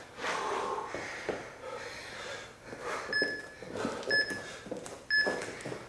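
Exercisers breathing hard through a bodyweight interval. In the second half, three short electronic countdown beeps sound about a second apart.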